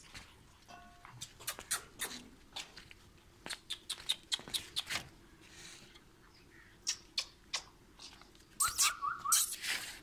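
Puppy giving short, high yips: one about a second in and a quick run of about four near the end, among scattered sharp clicks and taps.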